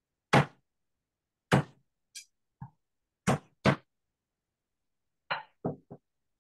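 Chef's knife knocking against a wooden cutting board while cutting garlic cloves. The knocks are sharp and irregular, the loudest about a second apart, then a quicker run of lighter ones near the end.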